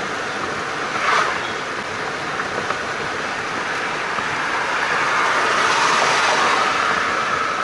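Steady road noise inside a moving car's cabin. It swells briefly about a second in and grows louder a few seconds later.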